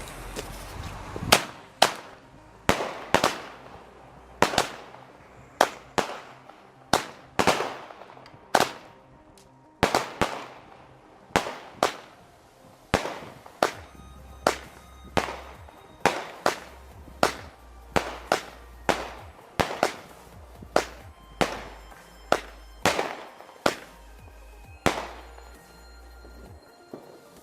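Multi-shot firework cake firing a long string of sharp bangs, about one a second, each trailing off in a short echo.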